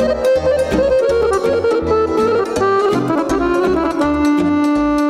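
Instrumental break in a Moldovan folk party song: a folk band plays the melody over a steady bass beat, with no singing.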